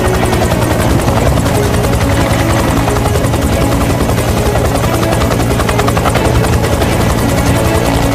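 Loud, steady aircraft engine drone with a fast flutter, a war-film sound effect laid over background music.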